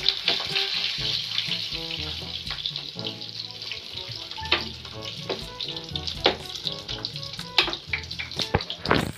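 Food sizzling as it fries in a pan, with a few sharp knocks, over background music.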